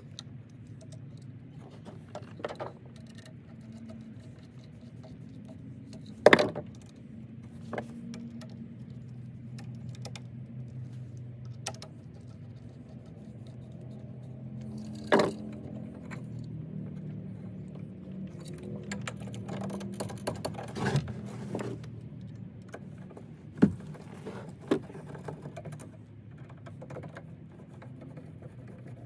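Handling of tools and electrical parts while wiring a wall toggle switch: scattered clicks, knocks and metal jingles, with a few sharper knocks, over a steady low hum.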